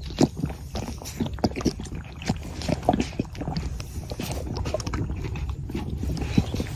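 A young camel sucking and gulping from a tipped-up plastic bottle, with irregular wet smacks and clicks as its lips work the bottle and the liquid sloshes inside, over a low wind rumble on the microphone.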